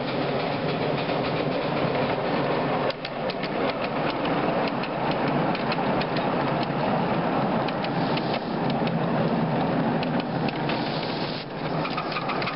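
Ride-on miniature live-steam locomotive and its train of wagons running towards and past, with a steady clatter of wheels on the track and the engine working.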